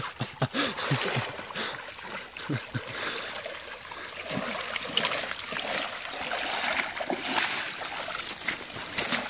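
Water splashing and trickling as a waterlogged car tyre is hauled out of shallow lake water and carried by a man wading in chest waders, water running off the tyre and sloshing around his legs.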